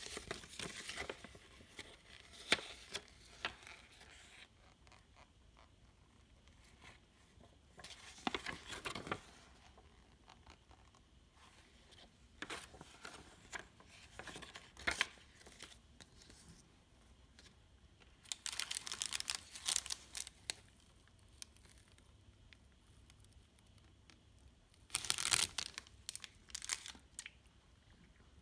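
Paper rustling and crinkling in several separate bursts a few seconds apart, as a folded paper chocolate menu card is unfolded and handled.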